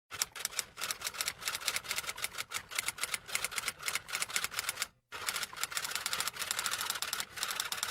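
Rapid, irregular run of sharp clicks, several a second, like typewriter keystrokes, with a brief pause about five seconds in.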